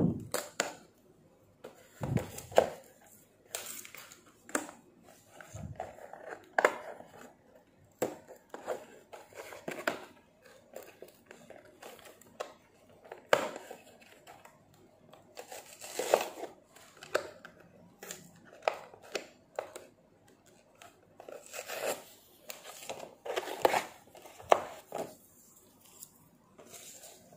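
Toy packaging being worked open by hand: irregular crinkling, crackling and tearing of plastic and card, with scattered sharp snaps.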